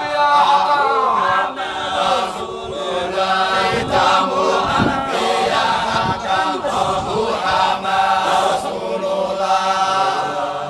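Voices chanting a Sufi dhikr together in a repeated melodic line, with a steady low drone underneath and a few low thumps around the middle.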